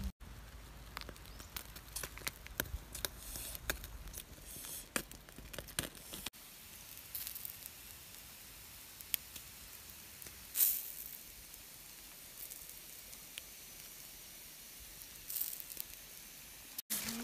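Whole duck roasting on a wooden spit over hot coals: dripping fat sizzles and hisses steadily, with scattered crackles from the embers and one louder pop about ten seconds in.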